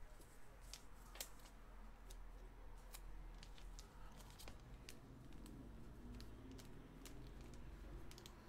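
Faint, irregular light clicks and taps, a few to the second, over a low steady room hum.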